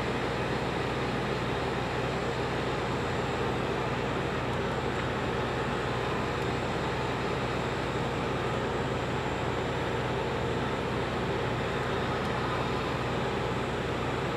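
Handheld heat gun running steadily, its fan blowing hot air over freshly sprayed paint to force-dry it.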